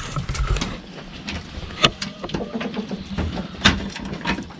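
Knocks and rustling handling noise in a wooden chicken shed, with two sharp knocks standing out, about two seconds apart, and hens clucking faintly.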